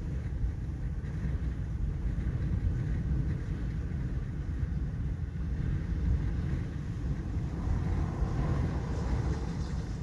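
Strong wind buffeting the microphone: a gusty low rumble with no pitch to it.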